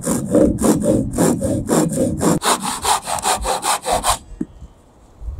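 A handsaw cutting through a wooden batten by hand: quick, even rasping strokes, about four a second, that stop about four seconds in as the cut finishes.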